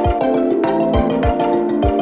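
Background music: mallet-percussion melody, marimba-like, over a steady kick-drum beat of about two beats a second.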